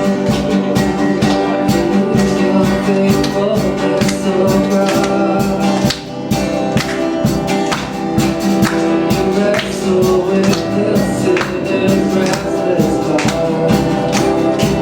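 Worship band playing an instrumental introduction: strummed guitar over a steady beat, with a tambourine and a faint voice.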